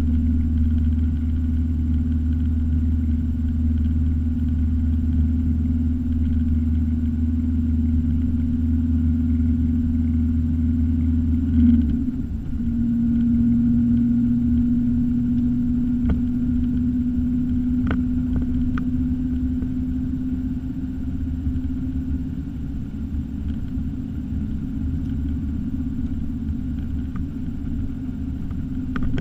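Car engine and tyre noise heard inside the cabin while driving: a steady low drone that changes character about halfway through.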